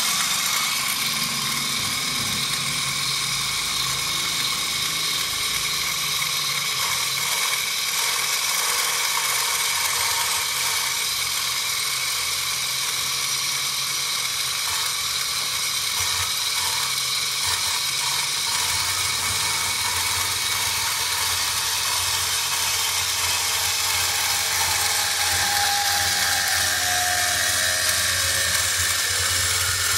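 DCSENG orbital pipe cutting machine running: its electric motor drives the cutting blade steadily while the head is cranked around a metal pipe, cutting it. Near the end a tone in the cutting noise slowly drops in pitch.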